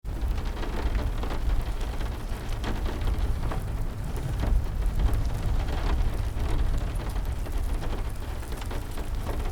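Heavy rain falling steadily over a constant deep rumble, mixed with scattered pops and crackles of a burning wood fire.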